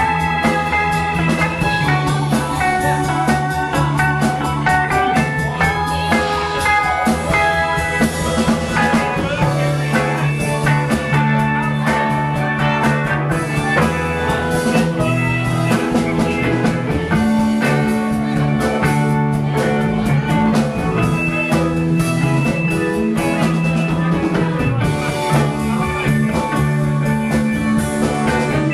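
Live rock band playing an instrumental jam: a bowed violin with electric guitars, keyboard and a drum kit, the music running steadily and loud.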